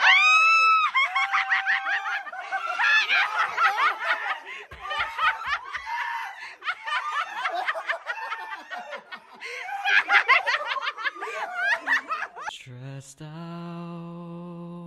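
A group of friends laughing, squealing and exclaiming excitedly together as they open and hold up surprise gift sweatshirts. About thirteen seconds in, the voices give way to a steady held musical tone.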